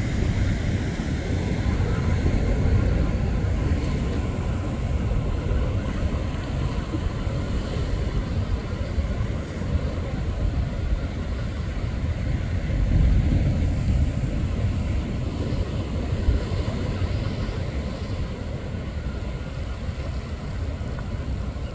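Twin-engine jet airliner on approach, its engines heard from the ground as a steady distant rumble that fades slightly near the end as it flies away.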